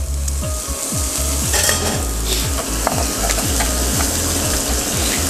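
Lamb T-bone pieces sizzling as they fry in a hot pan, with scattered light knife taps on a cutting board as pistachios are chopped. Underneath runs a low, repeating thumping beat.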